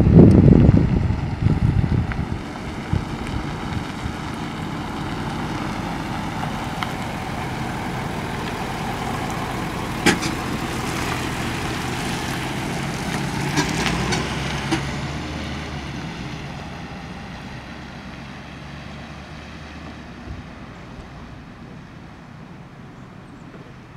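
Ford box ambulance driving past: its engine and tyres grow louder as it passes close about halfway through, then fade as it drives away. Wind buffets the microphone at the start. No siren.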